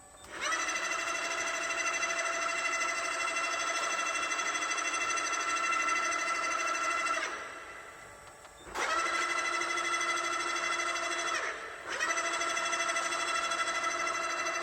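Giana GFP 14 CNC lathe's electric drive running with a steady high whine. It stops about seven seconds in, starts again a second and a half later, and dips briefly a few seconds after that.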